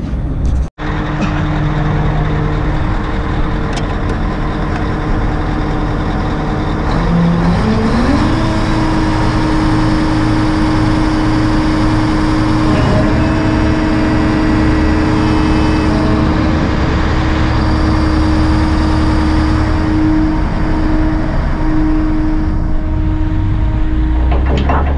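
Tadano ATF 180G-5 all-terrain crane's diesel engine running steadily close by; about seven seconds in its speed rises and then holds at the higher pitch.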